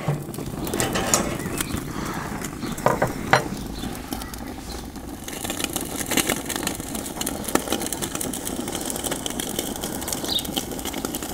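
T-bone steak sizzling and crackling as it sears under the BBQ-Toro Roastkiste's overhead gas burner, turned to maximum gas, over the burner's steady rush. A few metal clinks come in the first few seconds as the grate is set into its rail.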